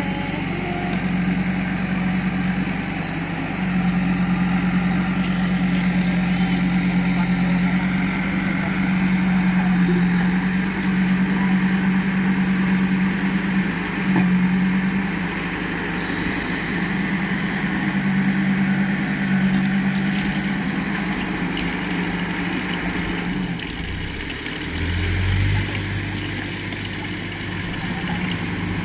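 An engine running steadily with a low hum, its pitch dropping about 24 seconds in.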